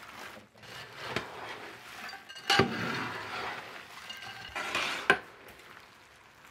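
A spatula stirs fried raw-banana pieces coated in sticky jaggery syrup in a large uruli, scraping through the pieces and knocking against the pan. The loudest knock comes about two and a half seconds in and another just after five seconds.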